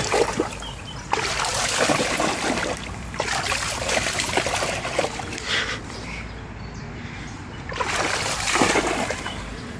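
A cocker spaniel splashing and thrashing about in a shallow stream, throwing up spray in repeated long bursts, the last near the end. Between the bursts there is a quieter stretch of running, trickling water.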